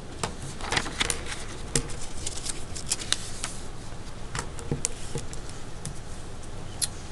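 Sheets of paper being moved and pressed flat on a desk, giving irregular crackles and light ticks.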